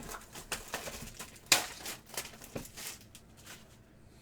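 A sealed trading-card box being handled and opened: a string of sharp clicks and crinkling rustles from its cardboard and plastic wrap, the sharpest snap about a second and a half in.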